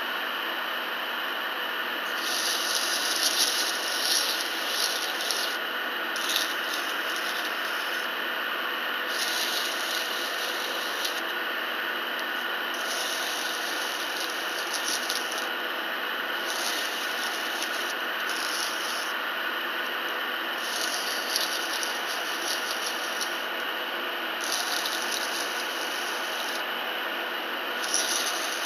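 A half-horsepower two-pole single-phase induction motor runs steadily, spinning an engine valve in a drill chuck. 80-grit abrasive paper on a push rod scrapes against the turning valve head in repeated passes of about one to two seconds each, giving a high hissing scrape over the hum.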